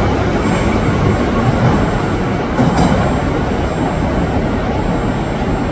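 81-717.6 metro train pulling out of an underground station and running off into the tunnel: a steady, loud rumble of motors and wheels on the rails that fades slightly as it recedes.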